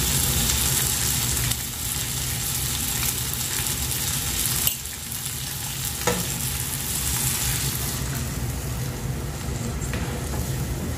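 Potato cubes and tomato-onion masala sizzling in oil in a pan while being stirred, with a sharp knock about halfway through and a smaller one soon after.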